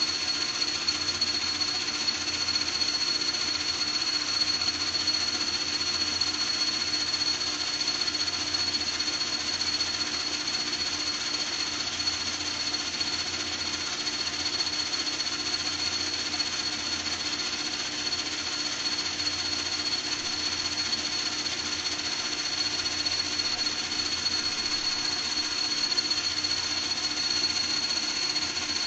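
A small motor or power tool running steadily and without a break, with a fast even rattle, a steady high-pitched whine and a low hum.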